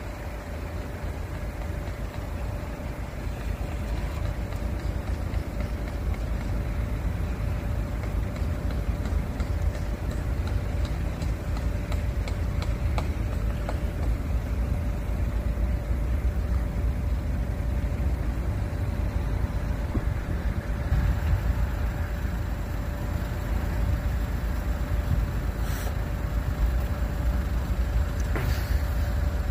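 Low, steady vehicle engine rumble, growing louder over the first several seconds and then holding, with a steady hum throughout.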